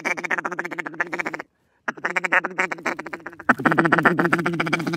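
Hand-blown duck call sounding fast strings of quacks and chatter to draw in ducks. A short dead gap about a second and a half in, and the calling grows louder over the last second and a half.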